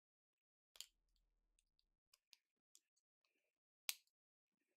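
Plastic LEGO bricks clicking as they are handled and pressed together: a sharp click about a second in, a few lighter ticks, and a louder snap near the end.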